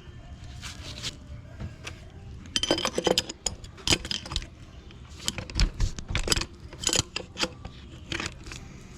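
Irregular metallic clinks and taps of a hand tool against metal engine parts, in quick clusters from a couple of seconds in until near the end, as a stuck vacuum line on the engine is worked at.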